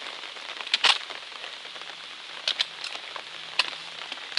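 Rain falling steadily, an even hiss broken by a few sharp taps, the loudest about a second in.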